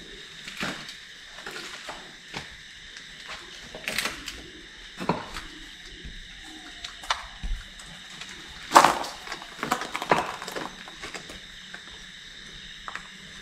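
Irregular sharp knocks and scuffs at uneven intervals, over a faint steady high-pitched tone.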